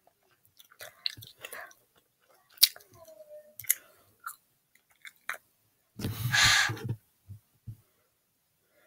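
Small wet mouth clicks and lip smacks close to a laptop's built-in microphone, like chewing. About six seconds in comes a loud rushing noise lasting about a second, then a few faint clicks.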